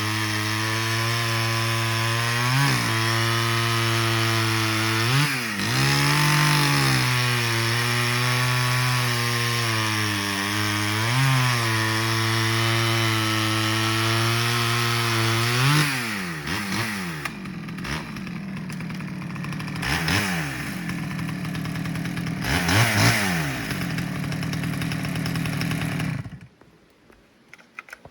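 Stihl 011 AVEQ two-stroke chainsaw held at high throttle, its pitch dipping and recovering several times. It is then revved in a few separate blips and switched off about 26 seconds in.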